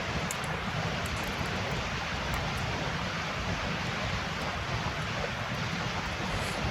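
Steady rushing ambient noise, like running water or wind, with no distinct events in it.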